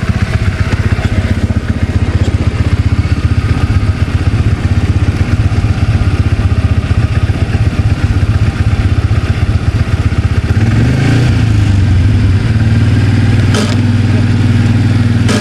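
Can-Am Outlander ATV engine running at idle with a steady, fast-pulsing low drone. About ten seconds in the revs rise, then hold steady at a higher speed.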